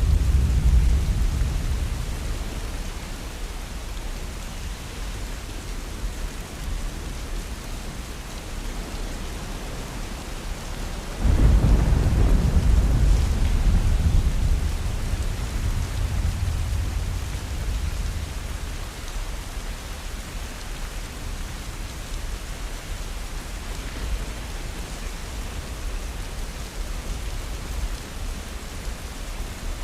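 Steady rain with thunder rumbling: a rumble fades away at the start, and about a third of the way in a loud clap of thunder hits suddenly and rolls away slowly over several seconds.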